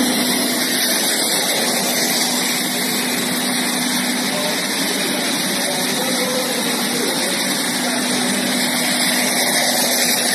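Oil-injected rotary screw air compressor running: a loud, steady rushing noise with a faint low hum underneath.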